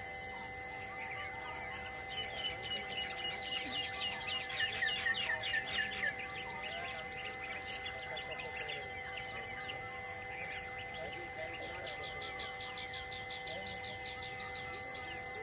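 Several wild birds chirping and trilling, loudest in a run of quick falling notes from about two to six seconds in, over a steady humming drone.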